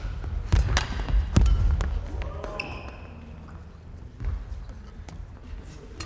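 Badminton rally ending: sharp racket hits on the shuttlecock and heavy footfalls on the court floor in the first two seconds, then a short high squeak, and it goes quieter after the point.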